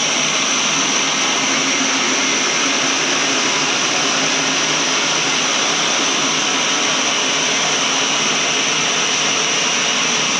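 Horizontal band sawmill running, a steady loud high-pitched whine over a hiss from the blade and its drive.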